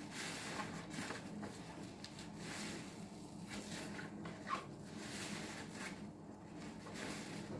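A green sponge full of dish-soap suds, squeezed and kneaded by hand in a foamy tray: wet squishing and crackling foam in repeated surges, with a short squeak about four and a half seconds in.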